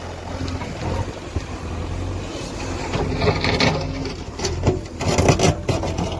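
JCB 3DX backhoe loader's diesel engine running steadily. From about three seconds in there are bursts of clattering knocks and scraping, loudest about five seconds in.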